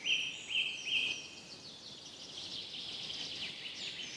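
Forest birds singing: three short, clear whistled notes about half a second apart, then a run of quick, high chirps and twitters.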